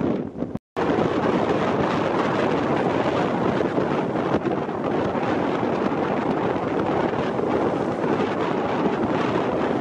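Wind blowing across the microphone, mixed with small waves breaking and washing up the sand; the sound cuts out for a moment about half a second in, then carries on steadily.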